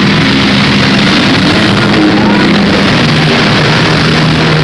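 Several demolition-derby minivan engines running at once, loud and steady, over a dense din of crowd noise.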